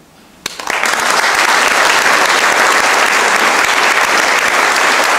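Concert audience breaking into loud, sustained applause about half a second in, the end of a male voice choir's song.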